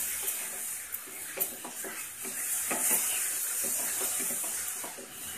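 Coconut and jaggery filling sizzling in a pan as the jaggery melts, stirred and scraped with a spatula: a steady hiss with many short, uneven scrapes and light taps.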